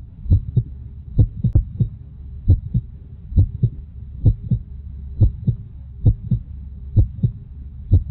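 Slow heartbeat: paired deep lub-dub thumps repeating steadily a little over once a second, over a faint low hum.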